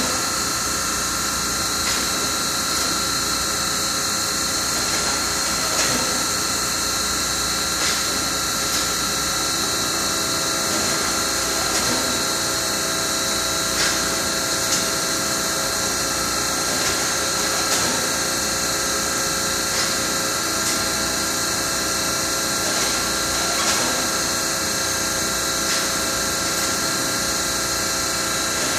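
Industrial thermoforming machine running, its loop of metal mold plates cycling along the conveyor. Steady mechanical hum and high hiss with a steady whine, and a light click about every two seconds.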